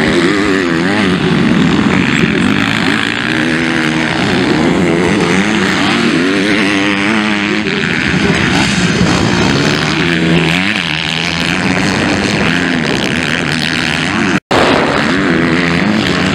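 MX2 motocross bikes racing: their engines rev up and down with the throttle through jumps and turns, the pitch rising and falling continuously. The sound drops out briefly about fourteen seconds in.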